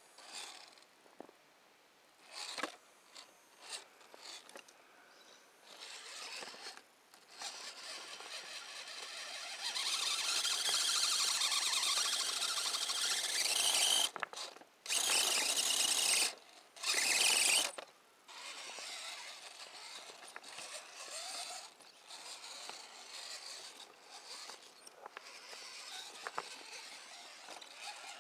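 Electric RC rock crawler's motor and geared drivetrain whining under throttle, rising in pitch and then coming in three bursts that cut off sharply. Light clicks and knocks of the tyres and chassis on rocks come before and after.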